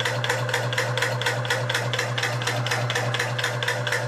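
Shop-built high-pressure air compressor running, its pistons pumping in an even clatter of about five strokes a second over a steady motor hum. It is building pressure toward its pressure-switch cut-off.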